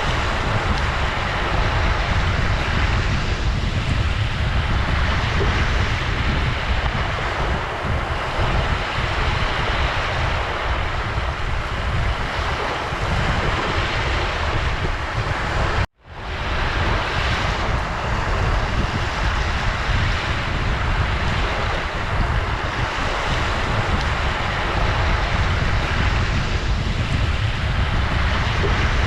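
Ocean surf: waves washing in as a steady wash of noise with a heavy low rumble, swelling and easing slowly. A little past halfway it cuts out for a moment and fades back in.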